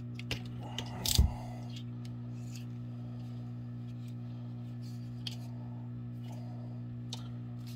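Small clicks and one louder clunk about a second in, from handling the CO2 discharger and rifle at the bench, over a steady low hum.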